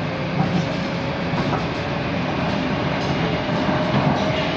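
Moskva-2020 metro train running through a tunnel, heard from inside the car: a steady rumble of wheels on rail, with a faint whine that rises slowly in pitch.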